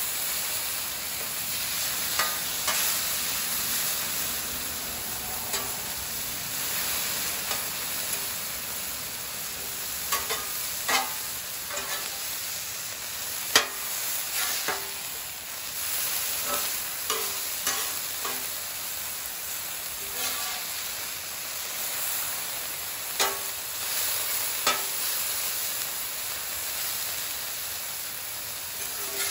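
Diced ribeye sizzling on a very hot steel flat-top griddle, with scattered sharp clinks and scrapes of a metal spatula and scraper turning and gathering the meat on the plate. The griddle is turned up a lot, hot enough that the meat is starting to toast.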